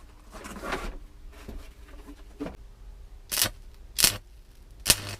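Stick arc welder striking an arc in short crackling bursts, about four of them, each cutting out after a fraction of a second, over a low steady hum.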